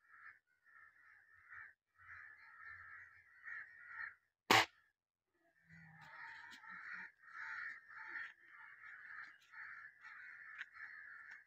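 A single sharp gunshot about four and a half seconds in, the loudest sound. Birds call over and over in short bursts before and after it.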